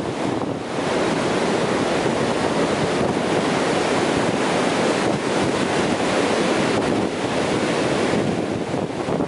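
Ocean surf breaking close in and foam washing up a sandy beach: a steady, continuous rushing wash of water.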